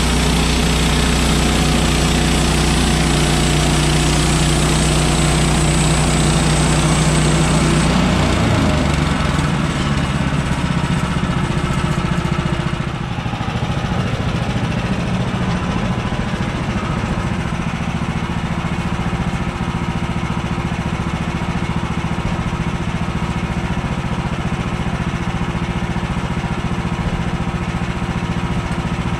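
Gasoline engine of a portable band sawmill running steadily. About eight seconds in its steady hum changes to a rougher, noisier sound, and it shifts again around thirteen seconds.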